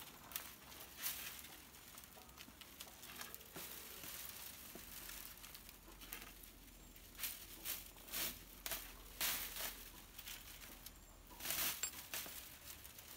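Dry coconut-leaf midribs (ekel) rustling and clicking against each other as coir string is wound and pulled tight around the broom bundle: faint, irregular crinkling with scattered sharp ticks.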